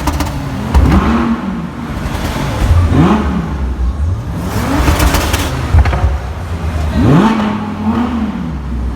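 Audi performance car engine revved in repeated blips, its pitch rising and falling about four times. Around five seconds in there is a quick cluster of sharp exhaust pops and crackles.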